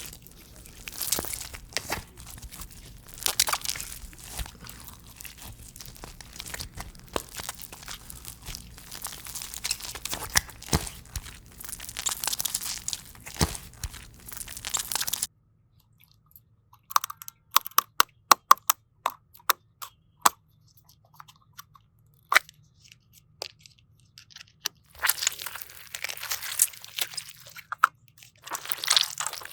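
ASMR crunching and crackling of a crunchy slime-type material being squeezed and pressed. The crackling is dense for about the first half and cuts off abruptly. Sparse sharp clicks and snaps follow, and the crackling starts again near the end.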